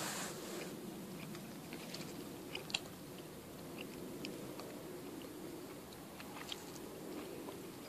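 Faint crackling and scattered small ticks from handling, with one sharper click nearly three seconds in, over a low steady background hum.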